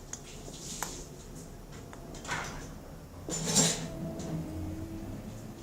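Clear glue being poured from a plastic bottle into a container, with light clicks of handling and two short rushing noises, the louder one about three and a half seconds in.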